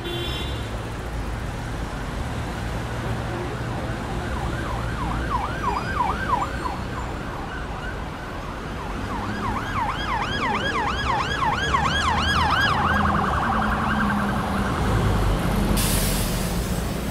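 Electronic siren yelping in fast rising-and-falling sweeps, about four a second, in two spells, then briefly warbling faster, over a steady low rumble. A short hissing whoosh comes near the end.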